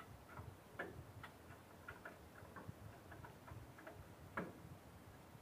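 Chain pulley block's chain clinking: faint, irregular light clicks, a few a second, with one sharper click about four seconds in.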